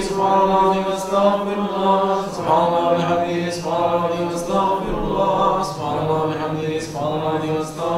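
Voices chanting a slow Sufi devotional chant (dhikr), with long held notes broken by short dips about every second.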